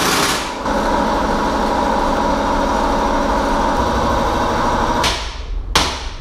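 A workshop power tool runs loudly and steadily for about five seconds during a motorcycle tyre change, then stops abruptly. A few sharp metallic knocks follow near the end.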